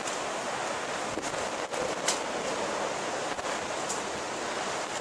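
Steady rush of storm wind and rain, with a few brief crackles.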